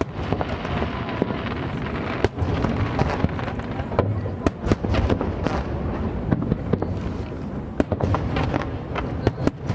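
Aerial fireworks display: shells bursting in rapid, irregular succession, sharp bangs and crackles over a continuous low rumble of booms.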